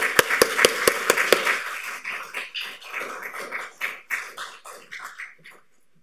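Audience applauding, with a run of louder, closer claps in the first second and a half; the applause thins out and stops near the end.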